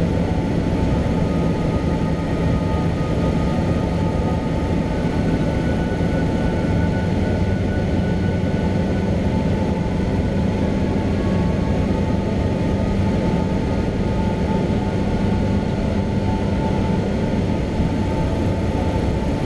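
A Cessna 172's piston engine and propeller running steadily in flight, heard inside the cabin as an even drone.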